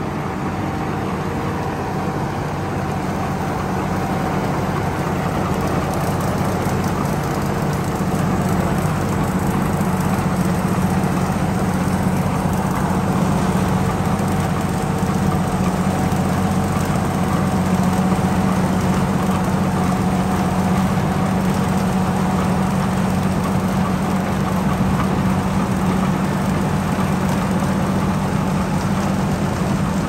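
Somkid Karnchang-built rice combine harvester running with a steady drone and held whining tones, the howling sound this maker's machines are known for. It grows slightly louder over the first several seconds.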